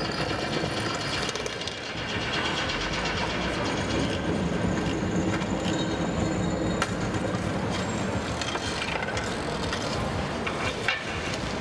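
Outdoor city noise: a low, steady rumble of a passing heavy vehicle that swells in the middle, with a few faint clicks and one sharp tick near the end.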